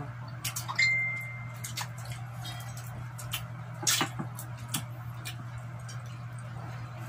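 Eating at a table: scattered sharp clicks and smacks of chewing and of fingers and food against ceramic plates, with one clink about a second in that rings briefly. A steady low hum runs underneath.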